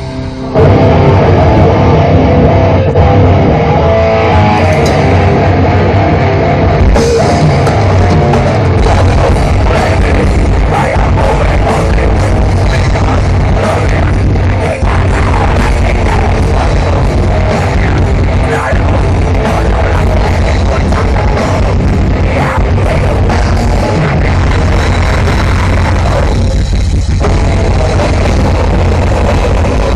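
Grindcore band playing live through a large outdoor festival PA, heard from the crowd: loud distorted guitars and fast, dense drumming. The full band comes in about half a second in after a lone guitar.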